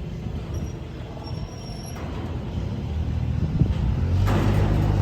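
A vehicle engine running with a steady low hum that eases off and then builds up again, growing louder and noisier in the last second.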